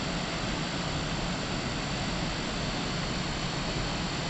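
Steady, even rushing noise of a waterfall, with two thin high tones held steady above it.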